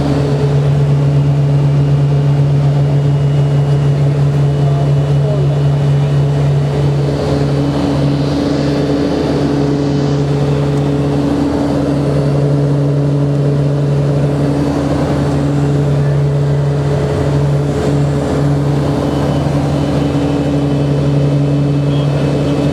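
Steady drone of a Beech Turbine Duke's PT6 turboprop engines and propellers in cruise, heard from inside the aircraft, with a strong low propeller hum over the rushing cabin noise.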